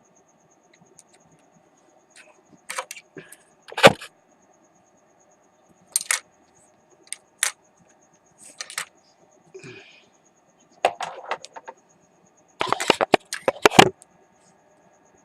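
Scattered sharp clicks and knocks of tools and parts being handled on a workbench during soldering, with a quick run of them near the end. A faint steady hum and a thin high pulsing chirp sit underneath.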